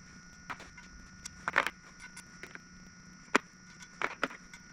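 Scattered sharp clicks and light knocks of small metal tools being handled, such as pieces of a thread-chasing kit, over a steady faint hum.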